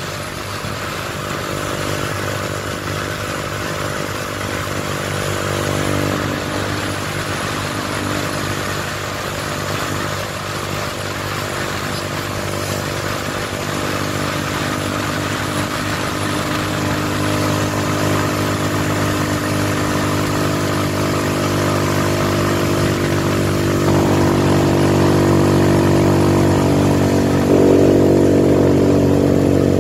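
Motorcycle engine running steadily under way, heard from the bike itself, with its pitch holding even and the sound growing a little louder over the last few seconds.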